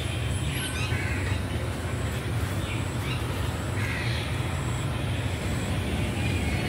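Steady low outdoor rumble with a few faint bird chirps.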